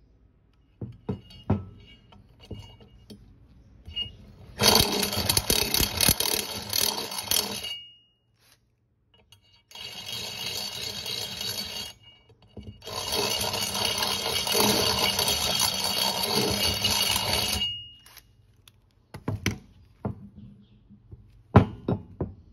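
Cordless drill with a twist bit running in the shock-mount bolt holes of a powder-coated steel A-arm, reaming out the excess powder coat, in three runs of a few seconds each. The bit scrapes with a steady high ringing whine. A few clicks and knocks of handling come before and after the runs.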